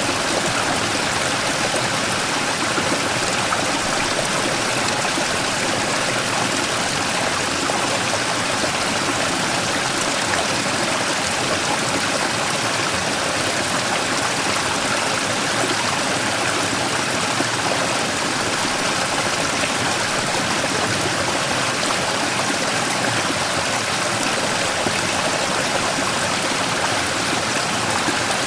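Mountain stream running and splashing over a large rock, a steady rushing, gurgling flow of water.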